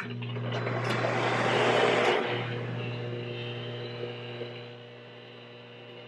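Over-the-range microwave oven running: a steady low hum with fainter higher tones over it. A rushing hiss swells over the first two seconds and then dies away.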